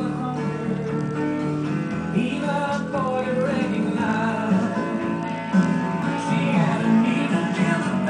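Background music with guitar and a singing voice.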